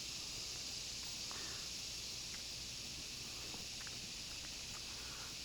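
Quiet outdoor background: a steady high-pitched hiss, with a few faint small clicks and ticks scattered through it.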